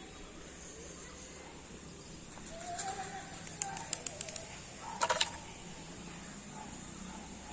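A short bird call about two and a half seconds in, followed by a run of sharp clicks. A louder brief rattle of clicks comes about five seconds in.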